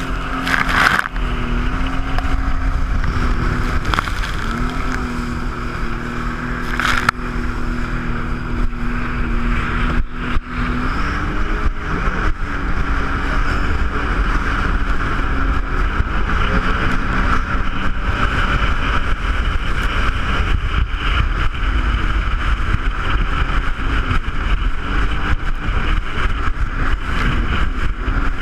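Jet ski engine running under way, its pitch dropping and climbing repeatedly with the throttle and held steady for several seconds at a time. Two short sharp knocks sound, one near the start and one about seven seconds in.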